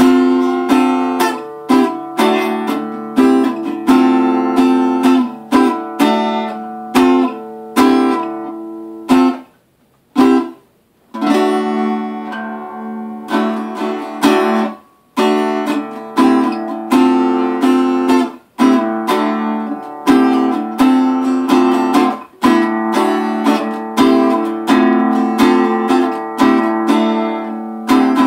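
Small travel-size acoustic guitar in drop D tuning, played with an oversized pick: repeated hard-struck chords that ring and decay over a low droning note. The playing stops for about two seconds around ten seconds in, then resumes.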